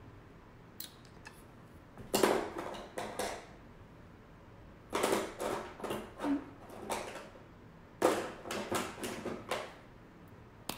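Makeup pencils and plastic cases clicking and clattering as they are rummaged through, in three short bursts of knocks a few seconds apart.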